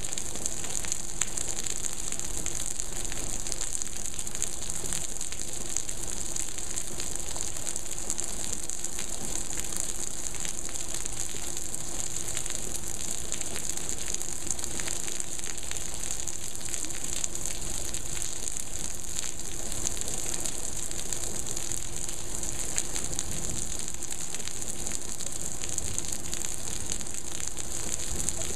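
Heavy monsoon rain pouring down steadily: a dense, even hiss with the patter of countless individual drops.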